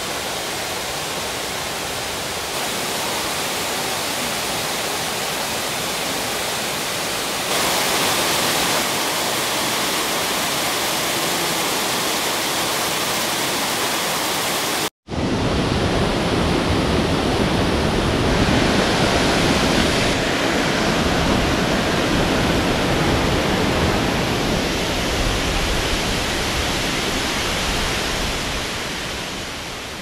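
Ohko no Taki, a tall waterfall, rushing down a rock face: a steady, loud wash of falling-water noise. After a short break about halfway, it comes back with a deeper, fuller rumble, then fades out near the end.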